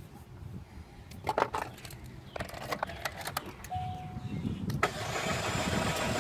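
Starter cranking a 2006 Chevy Cobalt's 2.2-litre four-cylinder engine, which turns over but does not catch. It builds and gets louder toward the end. A few clicks and a short chime come before the cranking.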